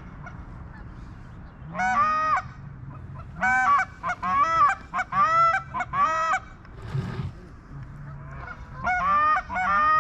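Geese honking in quick runs of calls, a short burst about two seconds in, a longer chorus in the middle and another run near the end.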